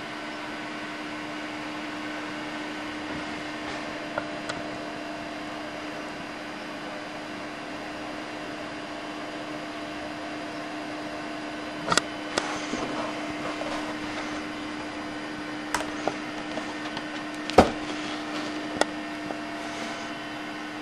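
Scattered sharp clicks and knocks from handling a pistol crossbow, the loudest a single sharp snap a few seconds before the end, over a steady background hum.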